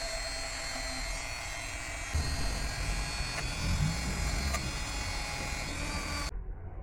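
A small motor running steadily, with a whirring hum.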